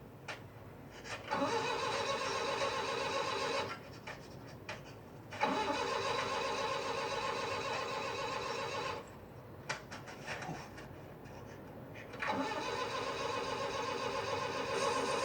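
A van's engine cranking over on the starter in three separate tries, each a few seconds of steady churning that never catches: a van that won't start.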